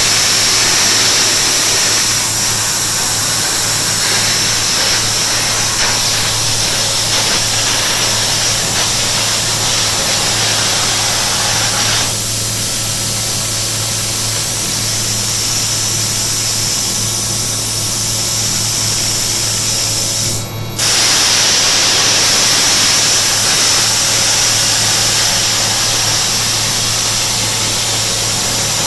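Hypertherm 1650 plasma cutter torch cutting on a CNC table: a loud, steady hiss over a low hum. The hiss breaks off for a moment about twenty seconds in and starts again.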